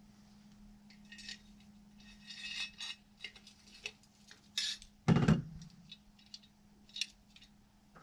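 Small metal parts and hand tools being handled during chainsaw muffler work: a string of light metallic clinks and scrapes, with one heavier knock about five seconds in.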